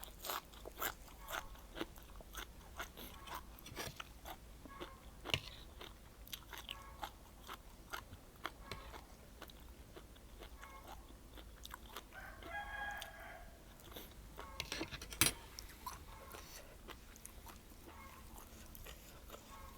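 A person chewing and crunching food close to the microphone, with many short sharp crunches and bites. A rooster crows once in the background about twelve seconds in.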